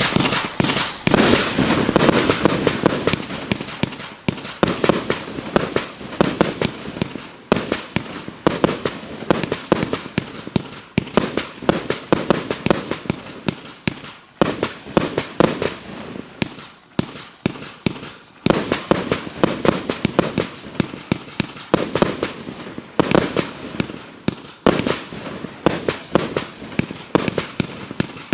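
A 100-shot compound fireworks cake of about 30 mm calibre firing in a fast, unbroken series: several sharp shots and bursts a second, overlapping throughout.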